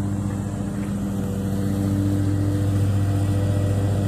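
Riding lawn mower's engine running at a steady pitch as it cuts tall grass.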